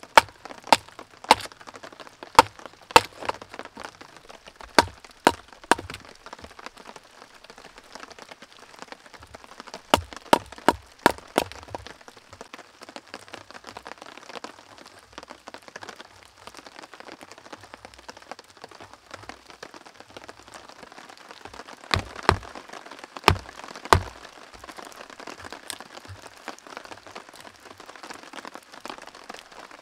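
Sharp wooden cracks of a blade chopping and splitting kindling on a log: a run of about eight strikes in the first six seconds, another quick run around ten seconds in, and three or four more near the end. Steady rain patters between the strikes.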